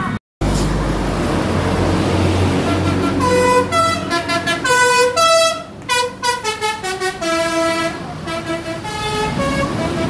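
Bus's multi-tone 'telolet' musical horn playing a tune of short stepped notes as the bus passes close, starting about three seconds in and lasting about six seconds. A low engine rumble comes before it.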